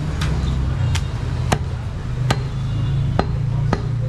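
Heavy butcher's knife chopping goat meat on a wooden chopping block: about six sharp chops at uneven intervals, over a steady low hum.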